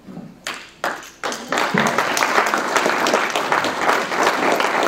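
Audience applauding: a few scattered claps at first, swelling into full, steady applause about a second and a half in.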